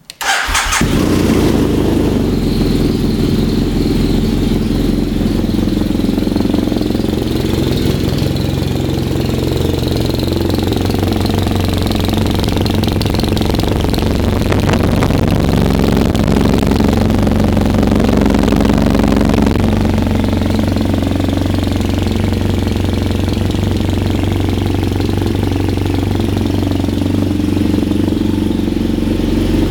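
BMW F800ST's 798 cc parallel-twin engine breathing through a Leo Vince SBK slip-on muffler. It starts right at the outset and then idles steadily.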